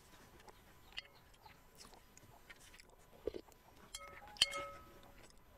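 Soft chewing of glutinous rice balls with a few small mouth clicks. About four seconds in, a metal spoon clinks against a cut-glass bowl, and the glass rings briefly.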